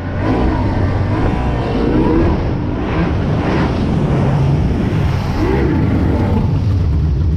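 225 hp outboard motor on an aluminium boat running at speed, the engine note wavering up and down, with a rush of wind and water over it.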